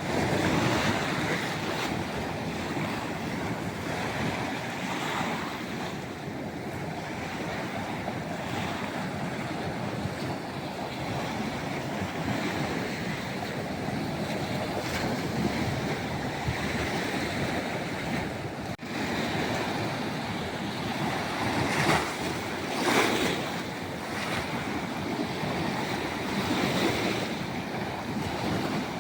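Sea waves washing onto the shore, a continuous surf noise with wind buffeting the microphone, and a couple of louder surges about three-quarters of the way through.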